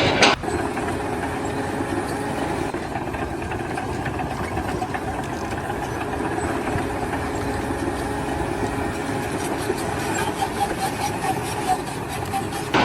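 An engine running steadily, as at idle.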